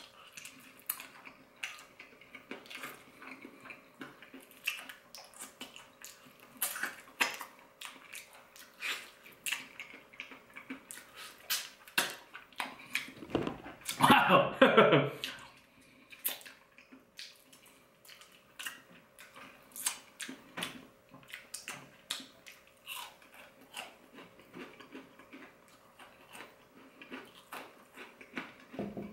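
Close-up eating sounds of sauce-coated fried chicken: chewing with many small crunches, wet smacks and clicks. A short wordless vocal sound about halfway through is the loudest thing.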